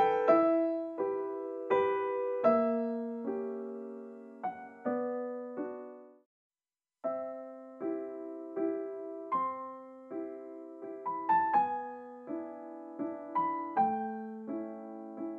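Solo piano background music, single notes and small chords struck one after another and left to fade. It breaks off into about a second of silence some six seconds in, then resumes.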